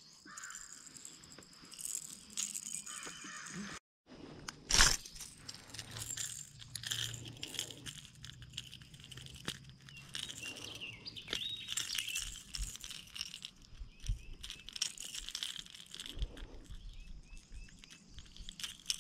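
Clicking and rattling of a hard-bodied lure's treble hooks as a landed bass is unhooked by hand, with a sharp knock about five seconds in. Birds chirp faintly.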